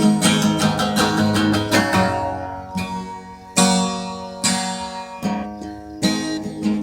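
Acoustic guitar being strummed: quick steady strumming for about two seconds, then single chords struck about once a second and left to ring out.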